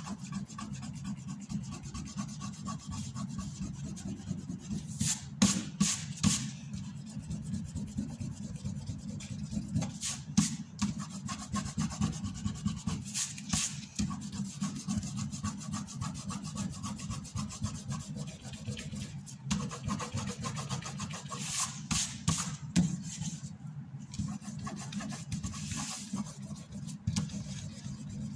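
Eraser rubbing quickly back and forth on drawing paper, a steady scrubbing with a few louder strokes now and then.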